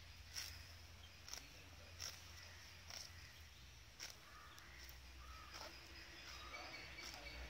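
Cow grazing, tearing up mouthfuls of grass with a faint short rip about once a second.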